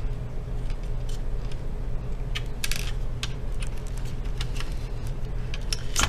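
Scattered small clicks and ticks of a small screwdriver turning out the screw that holds a laptop's cooling fan, over a steady low background hum.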